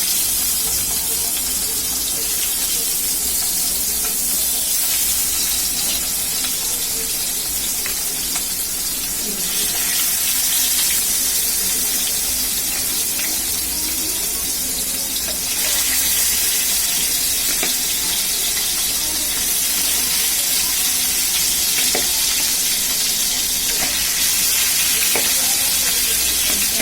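Spice-coated chicken pieces frying in hot oil in a pan: a steady sizzle with scattered small pops, growing a little louder about ten and fifteen seconds in.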